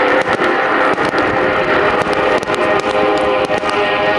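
Fireworks display: aerial shells bursting with many sharp cracks and pops, several a second, over a layer of steady held tones.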